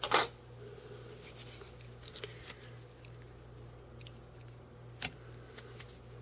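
Fly-tying tools handled at the vise: a sharp click just after the start is the loudest sound, followed by scattered light clicks and taps and one more distinct click about five seconds in, over a steady low hum.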